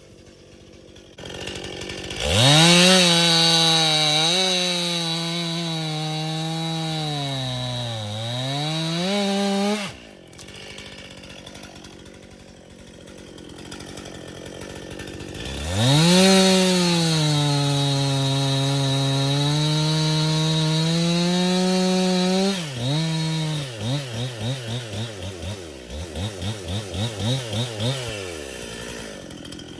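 Stihl MS261C two-stroke chainsaw bucking a dead ash log: two long full-throttle cuts, the engine pitch sagging and wavering as the chain works through the wood, with a drop back to idle between them. Near the end come a run of quick throttle blips, about two a second.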